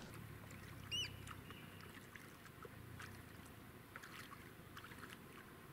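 Faint sounds aboard a small fishing boat on the water: a low steady rumble with scattered light clicks and knocks. One short high squeak that rises and falls comes about a second in.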